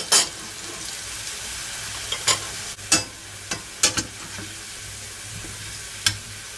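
Potato pancakes sizzling steadily in shallow hot oil in a frying pan as they fry on their second side. A spatula clicks and scrapes against the pan several times.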